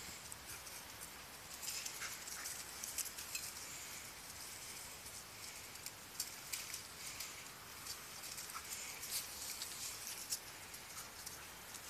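Paws of a husky and a pit bull pattering and rustling over grass and dry fallen leaves as they play-chase, a faint run of light crackles and ticks.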